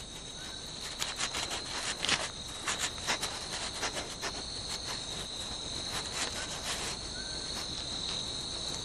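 Night insects trill steadily on one high pitch, with irregular light scratches and clicks from a Chinese pangolin working its snout at a papery tree-ant nest.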